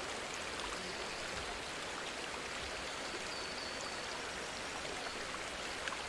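Shallow river water running steadily over rounded stones.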